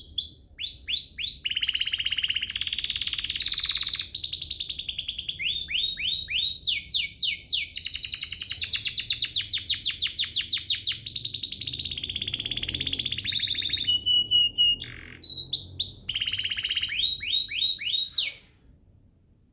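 Domestic canary singing a long, fast song of rapid trills: runs of quick repeated notes sweeping down in pitch, changing from phrase to phrase with brief pauses, and stopping abruptly near the end.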